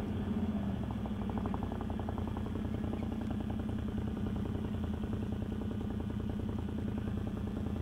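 Can-Am quad's V-twin engine running steadily at an even speed, with no revving.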